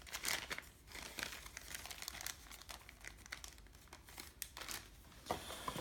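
Clear plastic bag crinkling and rustling in irregular bursts as it is handled, with a sharper click near the end.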